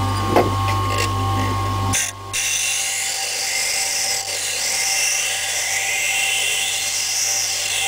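Small electric grinder running steadily. From about two seconds in, a piece of metal is pressed to it, adding a steady high hiss as the lockpick blank is ground to shape.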